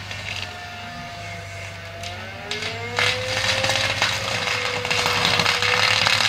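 A Seppi fixed-hammer forestry mulcher on a Cat excavator is running, over the steady hum of the excavator's diesel engine. The rotor's whine sags and dips about two seconds in, then climbs back. From about three seconds in it grows much louder, with a dense crackling clatter as the hammers chew through brush and branches.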